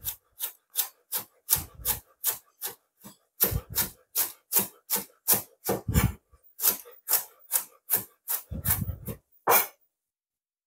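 Chef's knife shredding white cabbage finely on a wooden cutting board: a steady run of quick cuts, about two or three a second, each ending in a tap of the blade on the board, a few with a dull thump. The cutting stops near the end.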